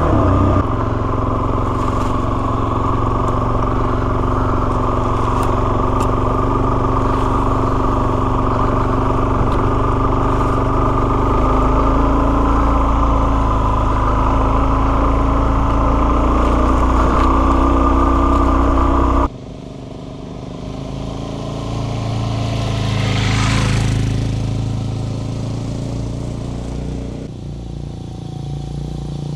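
Suzuki DR-Z400S single-cylinder dual sport motorcycle engine running at a steady speed, heard close up. About two-thirds through the sound cuts off suddenly to a quieter engine note with a brief swell that rises and falls.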